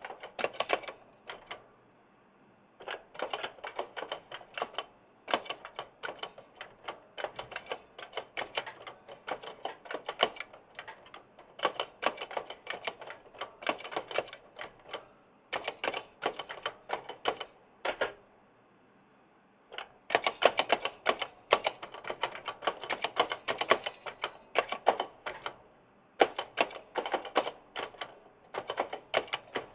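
Typing on a giant mechanical keyboard with clicky Kailh Blue switches and audible spring noise: rapid runs of sharp key clicks, breaking off twice for a second or two.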